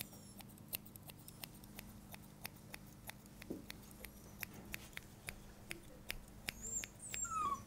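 Thinning scissors snipping through a Yorkshire Terrier puppy's leg hair: a run of faint, quick, irregular clicks, several a second.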